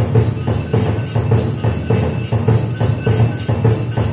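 Temple aarti: bells and cymbals ringing and clashing to a fast, steady beat, about four or five strokes a second.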